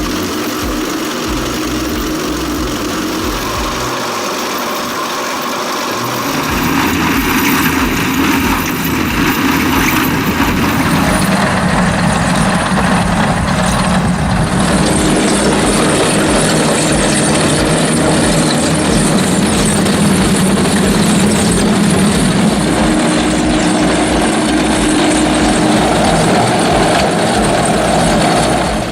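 Heavy machine's engine running steadily, growing louder about six and a half seconds in.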